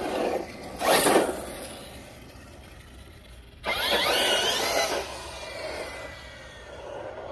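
Traxxas Kraton RC car's brushless electric motor and tyres in two short bursts of acceleration. The first is about a second in; the second, near four seconds in and lasting over a second, has a rising whine.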